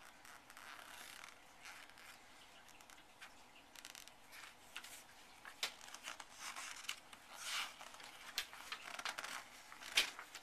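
Intermittent rustling and light clicks and taps, with a sharper click near the end.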